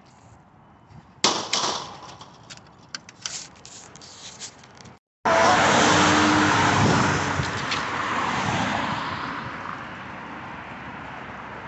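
A sharp knock, then small clicks as a plastic hubcap is handled. Just past the middle, after a brief break, the road noise of a passing car swells loud and slowly fades into a steady traffic hiss.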